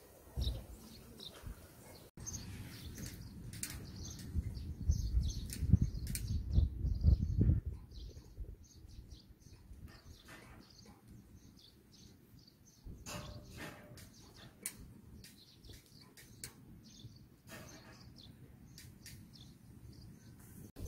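Small birds chirping in short, scattered calls. A louder low rumble runs from a few seconds in to about the middle, and comes back briefly later.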